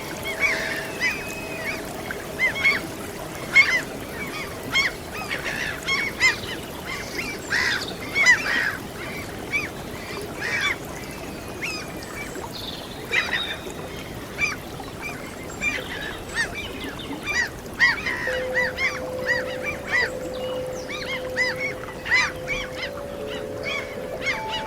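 A flock of gulls calling over and over in short, arching cries, over a steady wash of sea waves. Long, soft held musical notes sound at the start and again near the end.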